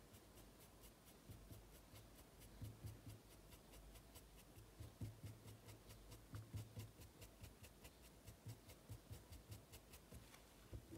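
Faint, quick scratching strokes of a paintbrush on fabric, several strokes a second.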